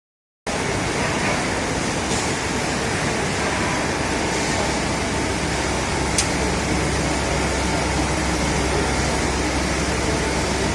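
CNC lathe running with its spindle and chuck turning: a steady machine noise over a low hum, with a faint steady tone, and one sharp click about six seconds in.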